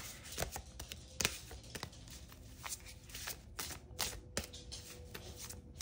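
A deck of oracle cards being shuffled and handled by hand: irregular soft slaps, taps and rustles of card stock.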